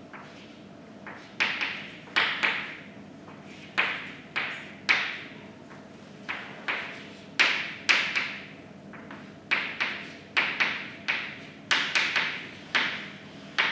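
Chalk writing on a blackboard: an irregular run of sharp taps and short scratchy strokes as an equation is written out, each stroke fading quickly.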